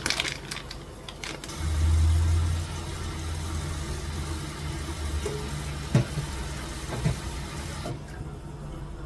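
A small electric motor starts about a second and a half in with a low hum, loudest for its first second, then runs steadily. Two light knocks come about two thirds of the way through.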